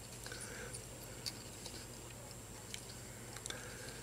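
Faint, scattered small clicks and ticks of tying thread being wrapped from a bobbin to form the head of a fly in a vise, over a faint steady hum.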